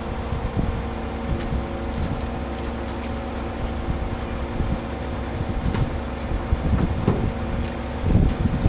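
Mobile crane's diesel engine running steadily under load as it hoists a tipped dump truck. Gusts of wind buffet the microphone, strongest near the end.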